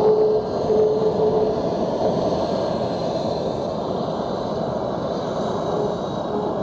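F-22 Raptor's twin Pratt & Whitney F119 turbofan engines running as the jet taxis past, a steady jet rush. A steady tone rides over it for about the first second and a half.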